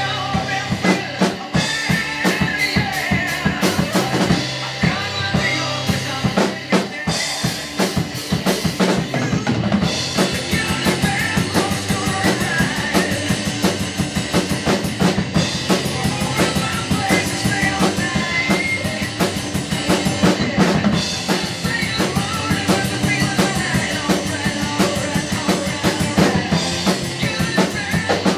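Rock drum kit played along with a hard rock recording: a steady beat of bass drum and snare with cymbals over the band's track.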